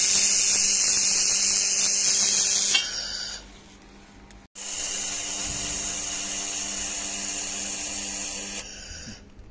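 Handheld wobble laser welder with wire feed welding stainless steel: a steady high-pitched hiss and whine that stops about three seconds in, starts again about a second and a half later, and stops shortly before the end.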